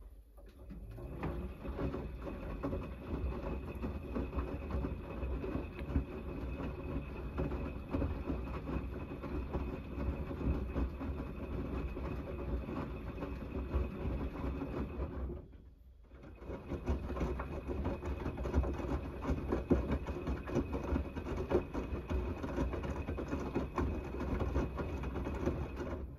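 Gorenje WNEI front-loading washing machine in its main wash: the drum motor starts with a rising whine and the drum tumbles soapy laundry through the water with a steady churning rumble. The drum stops for about a second roughly halfway through, then turns again until it stops at the end.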